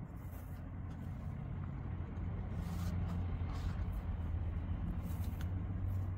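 A low, steady motor hum that slowly grows louder, with faint rustling and light ticks of cotton macrame cord being pulled into double half-hitch knots.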